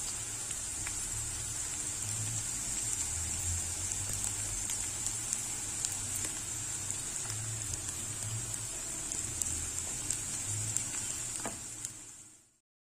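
Sliced onions sizzling in hot oil in a metal pan: a steady hiss with scattered small crackles. The sound fades out near the end.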